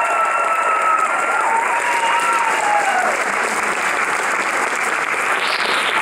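Audience applauding at the end of a dance routine, with long high cheers over the first three seconds that bend down and die away.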